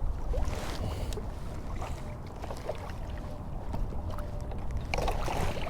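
Water lapping and splashing against a kayak hull, with wind rumbling on the microphone and a few small knocks.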